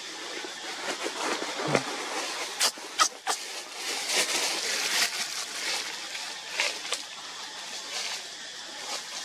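Leaves rustling and branches creaking as a long-tailed macaque climbs about in a tree, with a few sharp twig snaps about three seconds in.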